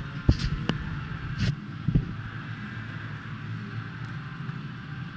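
A few sharp clicks and knocks in the first two seconds, one of them a short noisier burst, over a steady low hum.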